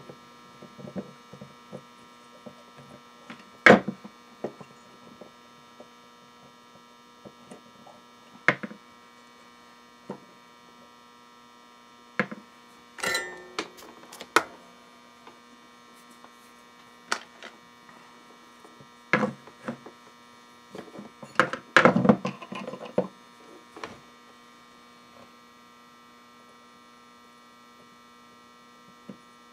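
Off-grid power inverter humming steadily on several fixed tones. Scattered clicks and knocks of wire and pliers being handled on a bench, loudest about 4 s in, around 13–14 s and 21–23 s.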